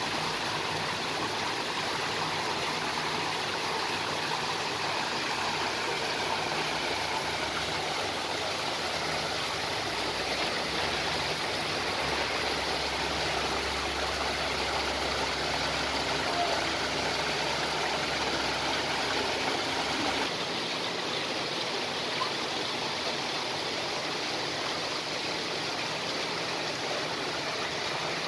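Small artificial waterfall splashing steadily over rock ledges into a pool, an even rush of falling water.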